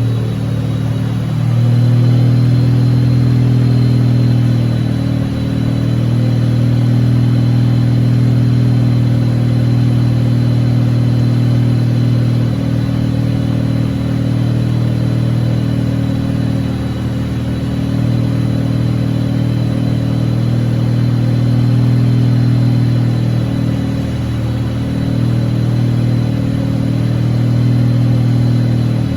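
Wankel rotary engine running steadily, its note swelling and easing slightly now and then, with a faint high steady whine.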